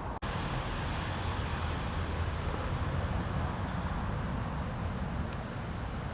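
Outdoor ambience: a steady low rumble, with a few short high bird chirps about three seconds in.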